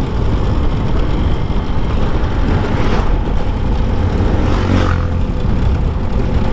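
Steady rushing wind and road noise from riding on a motorcycle, heavy in the low end, with no clear engine note.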